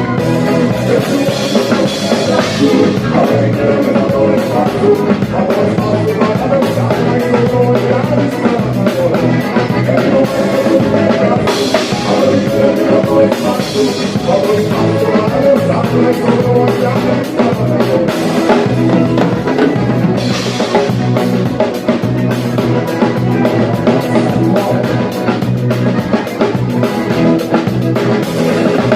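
Gaúcho band music: a drum kit keeps a steady beat under an accordion playing the tune, with cymbal crashes now and then.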